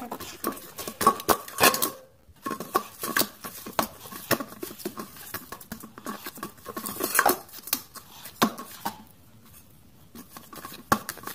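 Utensils clinking and scraping against a bowl while poori dough is mixed: irregular clinks with a slight ring, growing sparser near the end.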